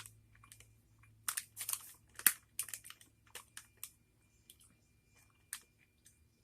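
Close-up eating sounds of a sour gummy candy being bitten and chewed: a run of sharp crackles and clicks for a couple of seconds, then only a few faint ticks.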